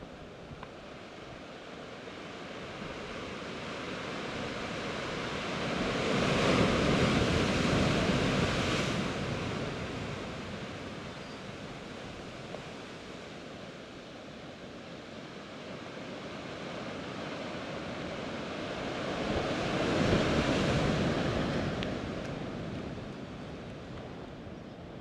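Sea surf breaking against volcanic rock shore: a steady wash of sea noise with two big waves that build, crash and drain away, one about six seconds in and another about twenty seconds in.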